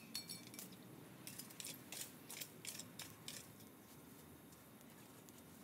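Small open fire of dry leaves and branches crackling faintly, with a quick run of about a dozen sharp crackles and snaps in the first three seconds, then fainter.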